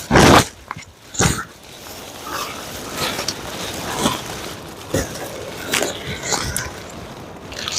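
A mylar emergency tent sheet crinkling and rustling as someone crawls inside it, with two loud crackles at the start and about a second in. Wind is pushing the thin sheet.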